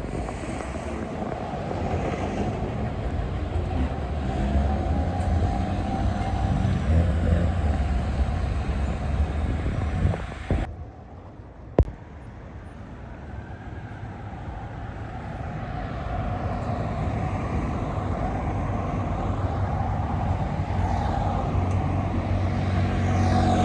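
Street traffic: motor vehicles driving past, a low engine and tyre rumble that builds, breaks off abruptly about eleven seconds in with a single sharp click just after, then builds again as another vehicle approaches.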